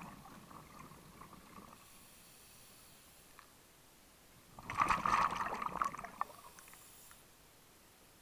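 A scuba diver breathing out through the regulator, heard underwater as bubbling gurgles: a short burst at the start, then a louder, longer bubbling burst about five seconds in.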